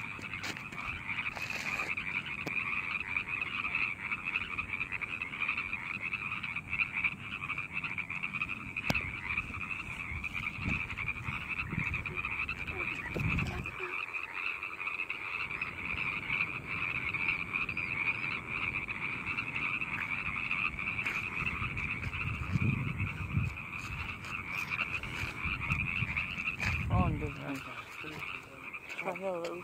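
A dense chorus of a great many frogs calling at once, a steady high-pitched din that never lets up. A few low thuds come and go under it.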